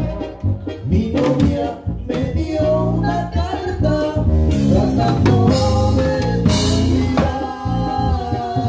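A live band plays a dance tune on drum kit and electronic keyboard, with a voice singing over it through the PA.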